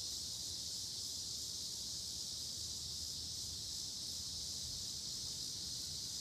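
Steady high-pitched insect chorus, an even hiss that never breaks, over a faint low outdoor rumble.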